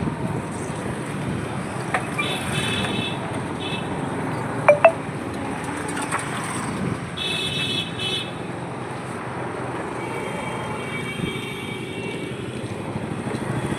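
Street ambience: steady traffic noise with faint distant voices, and two short sharp clicks close together a little under five seconds in.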